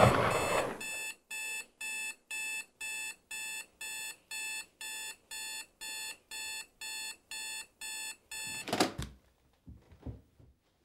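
A loud crash dying away, then an electronic alarm beeping steadily, about two beeps a second. A short burst of noise cuts it off near the end.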